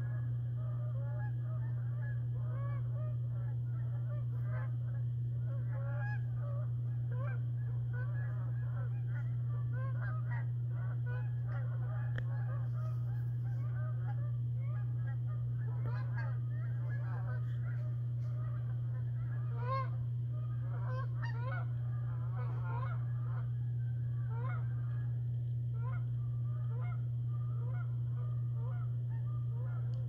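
A flock of Canada geese flying overhead, honking: many short overlapping calls, thickest in the middle. A steady low hum lies underneath.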